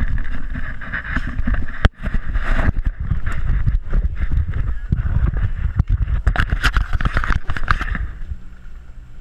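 Wind buffeting the microphone of a camera mounted on a boat: a heavy, fluctuating rumble with a hiss on top, cutting out briefly about two seconds in and again near six seconds, and easing off near the end.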